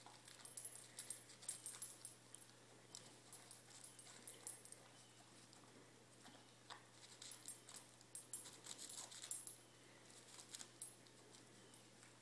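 Spaniel eating food scraps off a paper wrapper: faint, irregular clusters of short clicky chewing, licking and paper-rustling sounds, with pauses between them.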